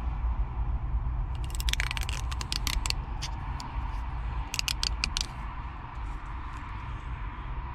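Protective liner being worked and peeled off the 3M adhesive pad of a dash mount: two bursts of rapid sharp clicks and crackles, the first about a second and a half in, the second near the middle, over a steady low rumble.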